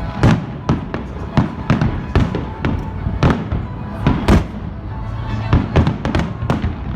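Aerial fireworks bursting in quick, irregular succession: sharp bangs several times a second over a continuous low rumble, with the biggest bursts about half a second in and about four seconds in.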